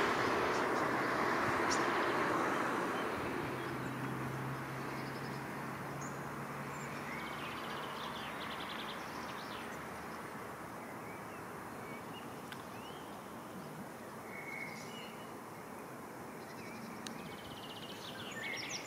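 Steady rush of flowing river water, louder in the first few seconds, with small birds chirping and trilling now and then, and one louder trill near the end.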